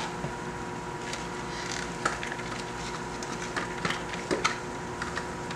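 A spatula scraping ground pepper, onion and herb paste out of a plastic food-processor jar into a plastic mixing bowl: soft scrapes and a few light knocks, over a steady hum.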